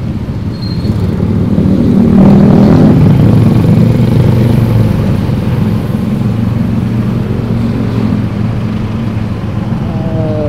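Motorcycle engine running in slow, dense city traffic, a steady low hum that gets louder about two seconds in and eases off again a few seconds later.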